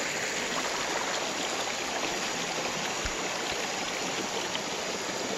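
Steady rushing of a stream's flowing water, with a couple of soft low bumps a little after three seconds in.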